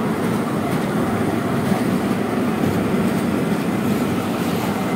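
Small open-carriage tourist train running along its narrow-gauge track, a steady rumble of wheels and running gear heard from aboard a carriage.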